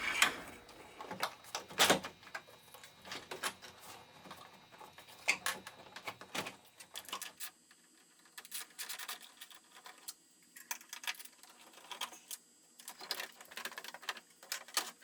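Scattered, irregular sharp clicks and light knocks of hand tools on the headlamp's retaining screws and plastic housing, coming more often in the second half.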